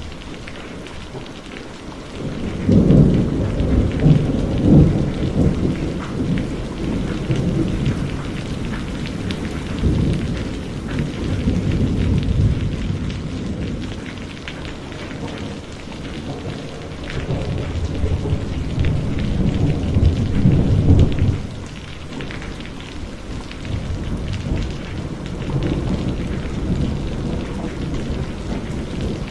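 Heavy rain falling steadily with thunder. A long rumble of thunder starts about two seconds in, swells and fades in waves for nearly twenty seconds and drops away fairly suddenly, then a softer rumble comes near the end.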